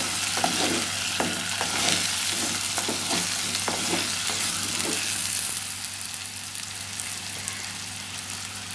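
Tinda (apple gourd) pieces sizzling as they sauté in oil in a clay pot, with a wooden spatula stirring and knocking against the pot through the first five seconds or so. The sizzle carries on, a little quieter, once the stirring stops.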